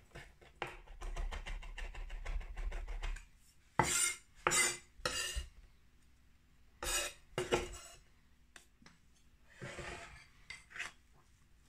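Chef's knife chopping fresh rosemary and thyme on a bamboo cutting board, a rapid run of taps for about three seconds. Then a handful of separate scraping, sweeping sounds across the board as the chopped herbs are gathered up.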